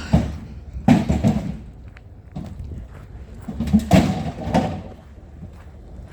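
Clattering and banging of scrap items being handled and pulled apart: a knock right at the start, then two louder bursts of clanking, about a second in and again around four seconds.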